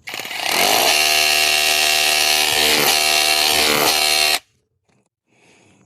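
Cordless brushless SDS-Plus rotary hammer drilling into solid stone, a steady hammering whine at full speed. It starts at once, runs about four seconds, and cuts off suddenly.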